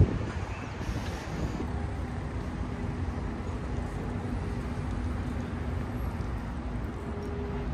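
Steady city street traffic noise: a low hum of vehicle engines with a faint steady drone.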